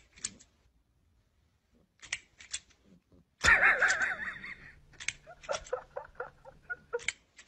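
Sharp plastic clicks of an extending crocodile grabber toy snapping its jaws, then about halfway through a person laughing, breaking into short giggles about three a second.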